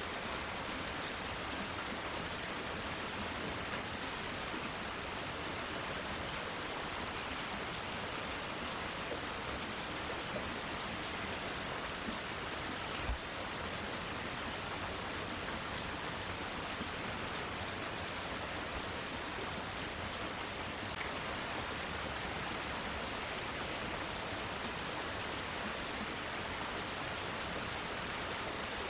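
Steady rain falling, an even hiss of drops on leaves and surfaces, with one soft low thump about halfway through.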